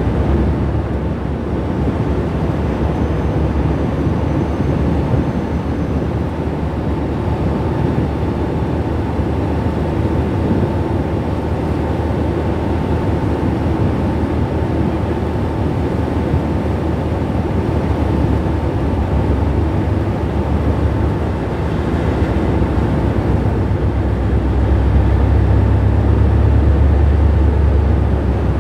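Offshore supply vessel's diesel engines running steadily, a loud low rumble with a faint constant whine above it. The low rumble grows louder about 24 seconds in.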